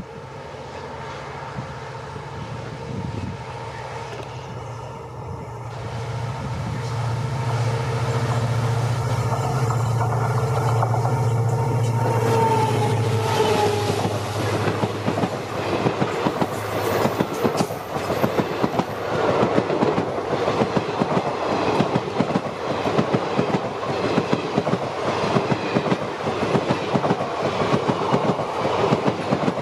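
WDP4-series diesel locomotive approaching with a steady engine drone that grows louder and drops in pitch as it passes about 13 seconds in. After that, its passenger coaches clatter by, wheels clicking rapidly over the rail joints.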